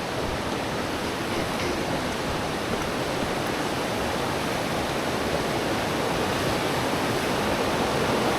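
Rushing river water: a steady rush that grows slowly louder toward the end.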